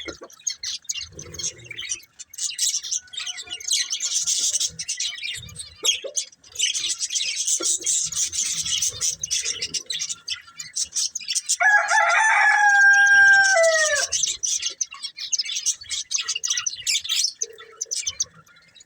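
Budgerigars chattering and chirping continuously in quick, high twitters. About twelve seconds in, a rooster crows once, louder than the budgies: one call held for about two seconds that drops in pitch at the end.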